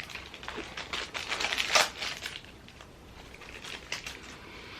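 Handling and opening a small cardboard mystery pin box and its packaging: a run of quick clicks, taps and crinkles, loudest a little under two seconds in, then quieter rustling.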